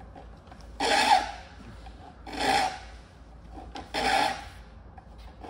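Saw file stroked across the steel teeth of a hand saw clamped in a saw vise: three file strokes about a second and a half apart. The teeth are being filed until the shiny flat left on their tops by jointing disappears.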